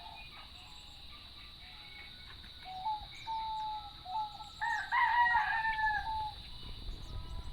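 Rooster crowing: a few short notes, then a louder, longer crow about five seconds in.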